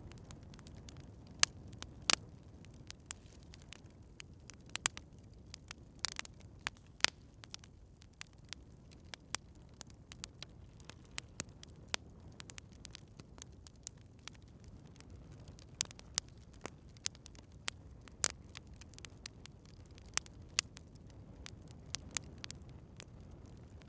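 Campfire crackling: irregular sharp pops and snaps over a steady low rumble from the burning fire.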